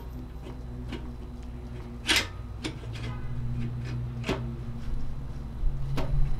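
Light metal clinks and taps as a toothed pump gear is fitted by hand onto a diesel engine's Bosch VE injection pump, with one sharper clank about two seconds in, over a low steady hum.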